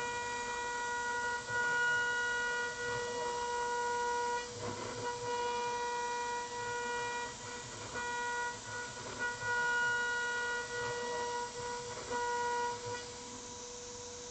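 High-speed spindle of a 6040 CNC router running at about 28,000 rpm, a steady high whine, as the end mill helically cuts aluminium. The whine's overtones swell and fade with the cut and drop away about thirteen seconds in, over a steady hiss.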